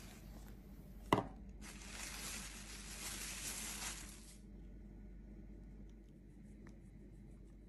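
A single knock about a second in, then plastic cling film rustling and crinkling for about three seconds as it is peeled off a turned-out dessert, stopping suddenly.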